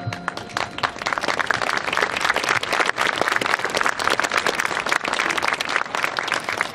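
Crowd in the stands applauding, a dense patter of many hands clapping. A marching band's held chord cuts off just as the clapping begins.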